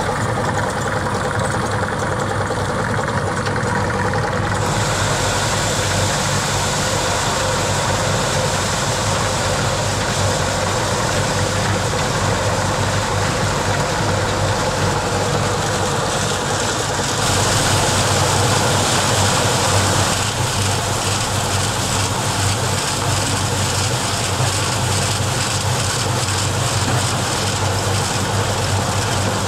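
An engine or motor-driven machine running steadily with a low hum. A high hiss joins about four seconds in and grows briefly louder a little past halfway.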